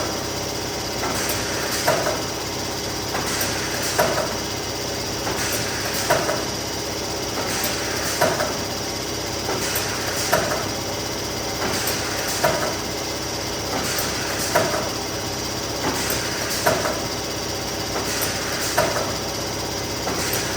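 Neoram 540 hot laminating machine running steadily while coating a run of sheets, with a short clack about every two seconds.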